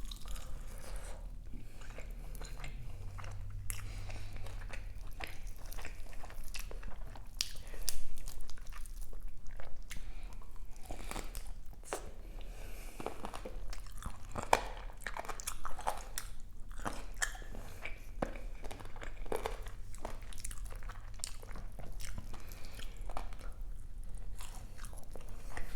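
Close-miked eating of crispy Jollibee fried chicken: irregular crunching bites of the fried coating and chewing, with no talking.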